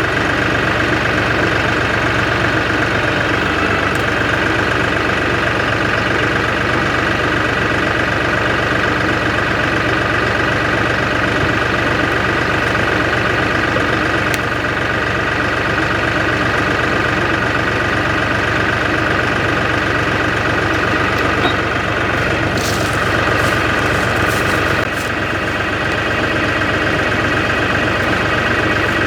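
An engine idling steadily, with a few light clicks a little over 20 seconds in.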